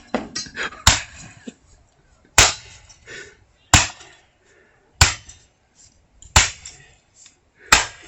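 An MTM 22-inch chainsaw being smashed with repeated heavy blows: six sharp impacts about one and a quarter seconds apart, some followed by a brief clatter of loose parts.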